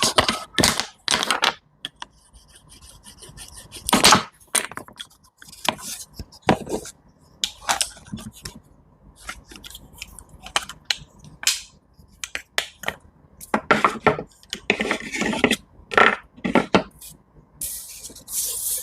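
Knife cutting and scraping through produce on a wooden cutting board, in irregular crisp strokes that come faster near the end.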